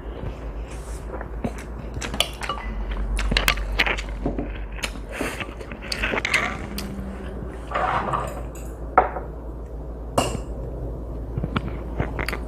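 Eating utensils clicking and clinking against a bowl of noodles, in many scattered light knocks, with a few short noisy eating sounds between them.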